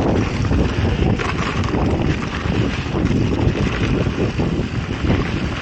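Wind buffeting the microphone of an action camera on a mountain bike riding a rough trail, with the bike rattling and jolting over the bumps.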